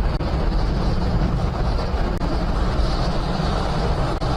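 Falcon 9 rocket's first stage, its nine Merlin engines firing during the climb shortly after liftoff: a steady, loud, deep rumble.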